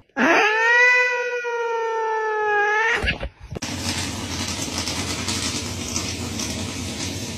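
A domestic cat giving one long meow, rising briefly and then held level for nearly three seconds before it cuts off. After a short gap, a steady rushing noise follows.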